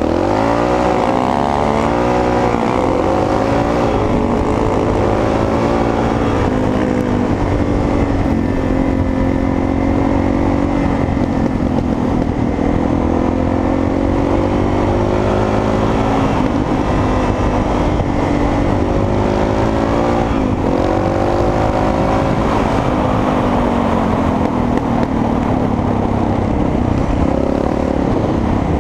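Dirt bike engine heard from the rider's helmet, its pitch climbing near the start and then rising and falling repeatedly as the bike accelerates and eases off along the track. Wind rushes over the helmet-mounted microphone throughout.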